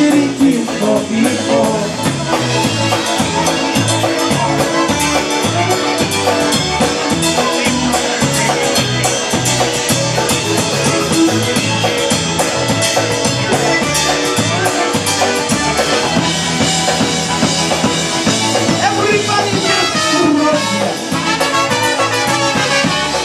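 Live polka band playing an instrumental passage: piano accordion and concertina over electric bass and drum kit with a steady beat, with two trumpets playing near the end.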